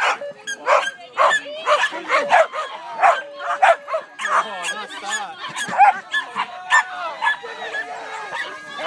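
Flyball dogs barking excitedly over and over, sharp barks about two a second at first, with higher yips and whines mixed in later.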